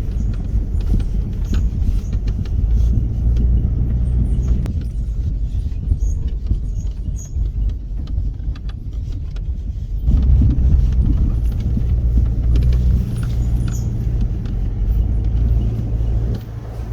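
A 4x4's engine running at low revs under load while crawling off-road, with scattered clicks and knocks. It gets louder about ten seconds in.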